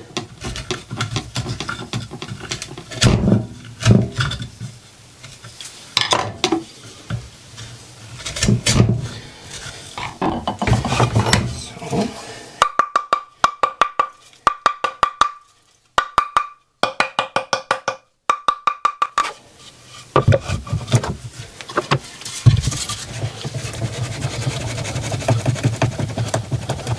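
A wooden mallet strikes a wood chisel and knocks wooden pieces of a cross joint together. The sharp knocks come irregularly at first, then in a fast, even run of taps with a slight ring in the middle.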